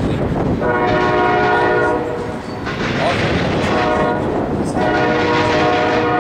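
Double-stack intermodal freight train rolling past, wheels clattering over the rail joints, while a multi-chime locomotive horn sounds three blasts: one about a second long, a shorter one, then a long one still held at the end.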